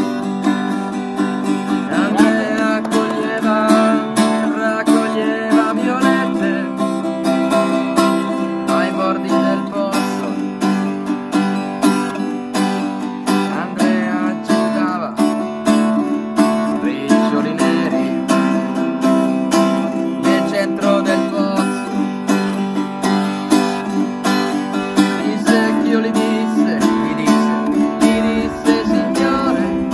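Acoustic guitar music: chords strummed briskly in a steady, driving rhythm.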